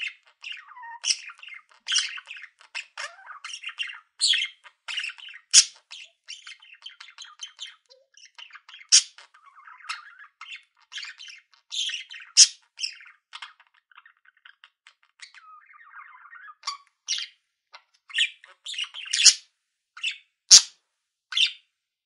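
Budgerigars chattering: a busy run of short chirps and harsh squawks, with several sharp, loud calls standing out.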